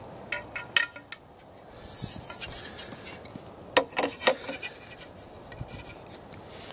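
Telescope truss tubes being handled and seated in their sockets on the truss adapter ring: a few light metallic clicks, a scraping slide, then two sharp clinks about half a second apart near the middle, followed by lighter ticks.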